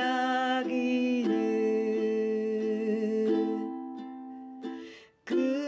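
Ukulele strummed in a three-beat waltz pattern (thumb, index, index), with a voice singing along. The chord fades out about four seconds in and breaks off briefly. A new strum comes in near the end.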